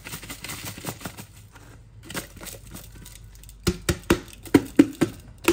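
Crumbly jaggery scraped out of a plastic tub with a wooden spoon into a steel pot of dry panjiri mix, a crackly rustle. About three and a half seconds in comes a quick run of sharp taps, about three a second, as the emptied tub is knocked over the pot.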